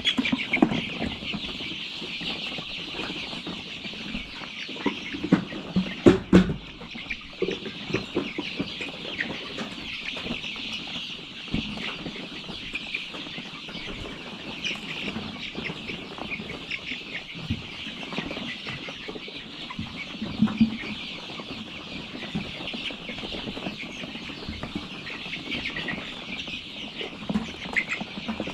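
A large flock of month-old chicks cheeping continuously, a dense high peeping chorus. A few knocks and clatters sound over it, the loudest about six seconds in.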